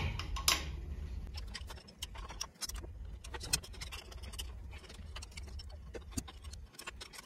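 Steel wrench turning the bolts on a Bell & Gossett 100 series circulator pump, giving a string of light, irregular metal clicks and ticks over a low steady hum.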